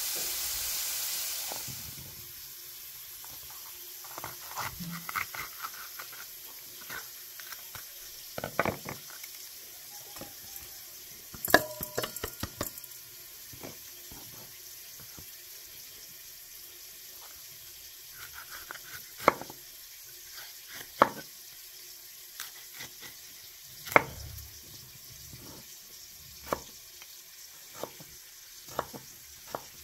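Kitchen work during food preparation: a steady hiss that fades out about two seconds in, then scattered clinks and knocks of utensils, with a few sharper knocks along the way.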